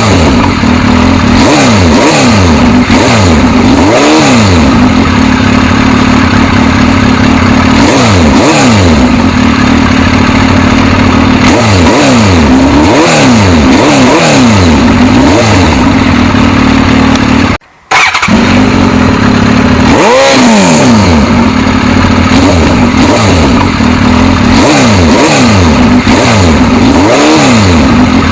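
Suzuki GSX-S1000's inline-four engine idling and being revved repeatedly, the revs climbing and falling back every second or two. The sound cuts out briefly about eighteen seconds in.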